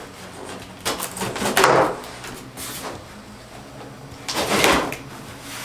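Cardboard scraping and rustling as a large box is pulled open, in two bursts, one about a second in and one near the end.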